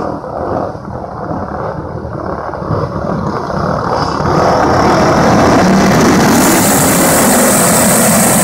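A pack of flathead-engine racing karts running on a dirt oval, their small single-cylinder engines at full throttle. The sound grows louder about four seconds in as the pack comes down the straight toward the listener.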